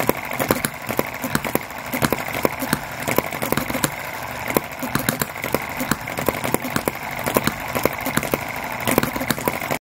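Model hit-and-miss engines running: a rapid, irregular run of sharp pops and clicks over a steady mechanical whir, cutting off suddenly near the end.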